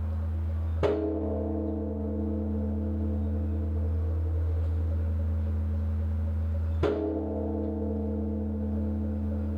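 Large Korean bronze temple bell (beomjong) struck twice, about six seconds apart, with a swinging wooden log. Each strike is followed by a long, deep ring whose low hum carries on between strokes. This is the tolling that announces evening worship.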